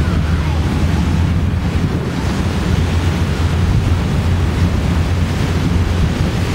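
Motorboat under way: a steady low engine drone with water rushing and churning in the wake, and wind buffeting the microphone.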